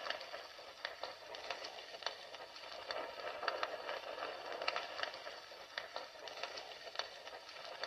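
Fire burning with a steady hiss and frequent irregular sharp crackles and pops.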